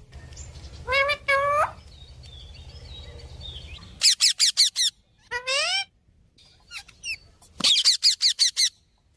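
Pet parrot calling: two short rising squawks about a second in, then two rapid runs of shrill, quick-fire notes with a longer rising call between them.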